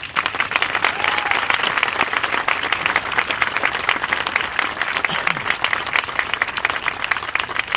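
Large crowd applauding, many hands clapping steadily.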